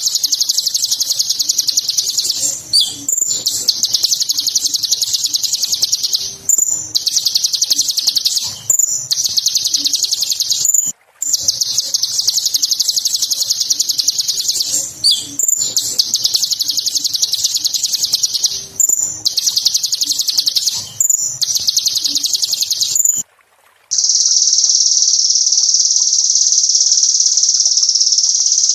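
Sunbird (Kolibri Ninja) singing a fast, high-pitched chattering trill in long phrases broken by brief pauses. Near the end the song gives way to a steady, unbroken high buzz, like an insect's.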